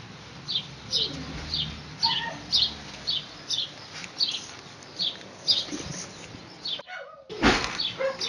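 A short high chirp repeating steadily about twice a second, like a small bird calling over and over. Near the end the sound cuts out for a moment, then a loud brief clatter.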